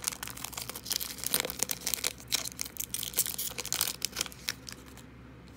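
A trading-card pack's foil wrapper being torn open and crinkled: a dense run of crackling that dies away about four and a half seconds in.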